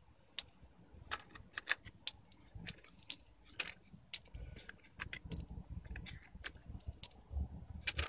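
Small metal hardware, bolts and washers, clicking and clinking as it is picked through by hand: a string of sharp, irregular clicks.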